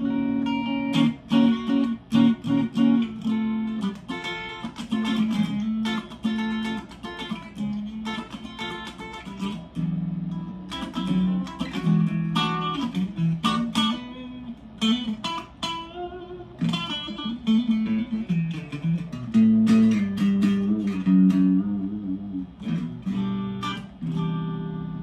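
A Harley Benton Strat-style SSH electric guitar is played through an amplifier with the pickup selector on the combined bridge humbucker and middle single-coil position. It picks a continuous run of single notes and chords.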